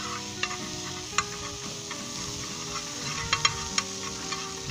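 Butter sizzling as it melts on a hot iron tawa, with a spoon scraping and clicking against the griddle as it spreads the butter around; a cluster of sharper clicks comes near the end.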